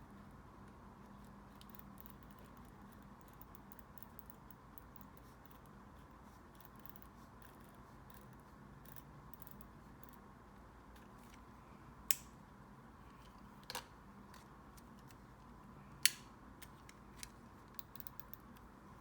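Quiet handling of a paper journal and stationery on a desk: faint ticks and rustles, with a few sharp clicks in the second half.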